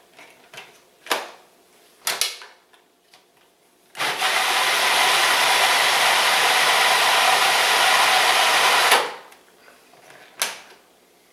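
Food processor motor running steadily for about five seconds, chopping a bowl of tomatillo salsa verde, starting and stopping abruptly. A few sharp clicks come before it and a single knock after it.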